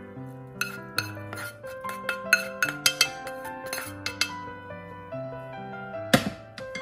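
Metal utensil clinking and scraping against a stainless steel mixing bowl as crumbled cooked ground meat is tipped in: a quick run of clinks over the first four seconds and one louder knock near the end, over piano music.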